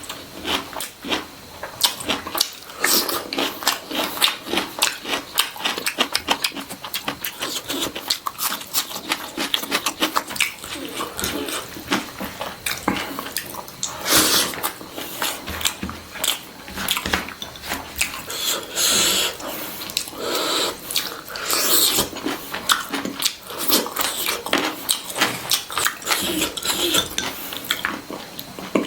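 Close-miked wet chewing and lip-smacking while eating country chicken in gravy, a steady run of irregular smacks and clicks.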